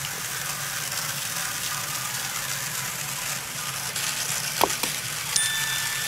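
An engine running steadily in the background, a low hum under a hiss. About two-thirds of the way in there is a short metallic clink with a brief ring, and a second lighter click just after.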